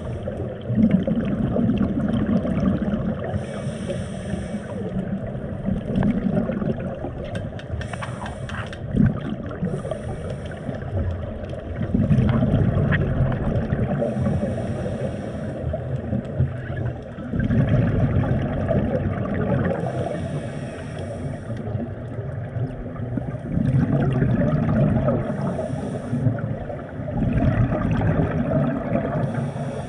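Scuba diver breathing through a regulator underwater: a short hiss on each inhale, then a rumbling gush of exhaled bubbles. It repeats about every five to six seconds.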